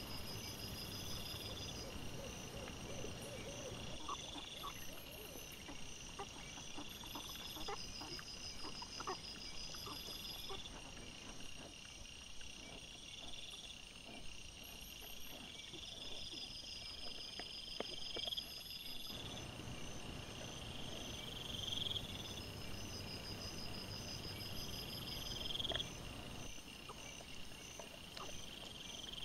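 Night insects calling in high, rising chirps that repeat about every two seconds over a steady hiss. Scattered faint clicks and rustles come from wild boar rooting in the leaf litter, mostly in the first two-thirds.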